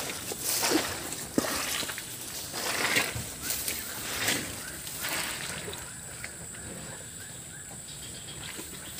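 Footsteps in wet flood mud, a run of irregular steps that thins out about halfway through and turns quieter.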